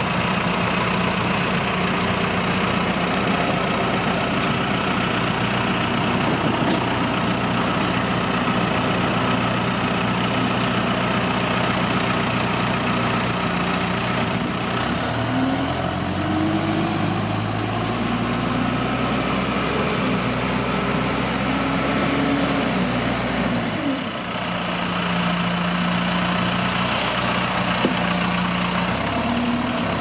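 2010 John Deere 310J backhoe loader's four-cylinder diesel engine idling steadily, then revving up about halfway through as the machine drives and turns, the engine note rising and shifting for several seconds before settling back to a steady idle.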